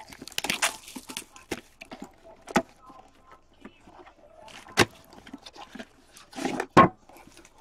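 Plastic shrink wrap crackling and tearing as it is pulled off a sealed box of hockey cards, with a few sharp snaps of the wrap and box; the loudest snap comes near the end.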